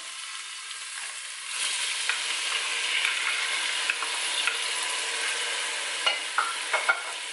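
Diced onion frying in olive oil in a metal pot, the sizzle growing louder about one and a half seconds in as diced red pepper is tipped into the hot oil. Near the end a few sharp knocks of a wooden spoon against the pot.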